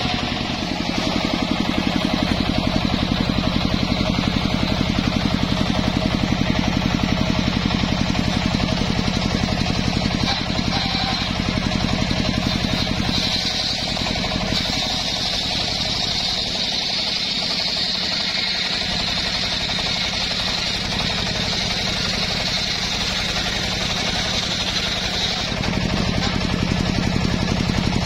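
Large homemade table circular saw running on its engine drive, then ripping lengthwise through a teak log from about halfway in to a few seconds before the end. While it cuts there is a high-pitched cutting whine and the engine note drops under the load, then it runs free again.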